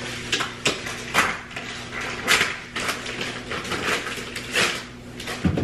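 Dishes and cookware handled at a kitchen range: a run of short knocks, scrapes and rustles, over a steady low hum.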